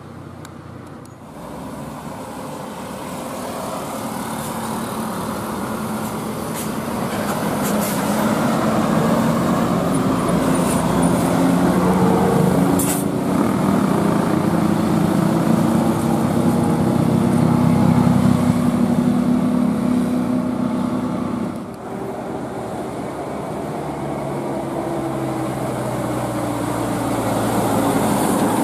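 Bus engine pulling away and building speed, with a rising drone. It drops off sharply for a gear change about two-thirds of the way through, then pulls again. There is a brief hiss near the middle.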